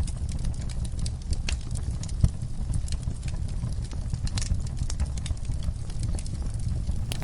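Wood fire in a fireplace crackling, with irregular sharp pops and snaps over a low steady rumble. One louder pop comes about two seconds in.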